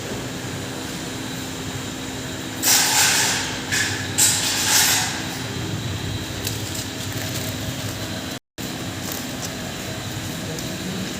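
Impact pulverizer (hammer mill) running steadily with a constant hum. Between about three and five seconds in, a few loud hissing, rushing bursts break over it, and the sound drops out for an instant near the end.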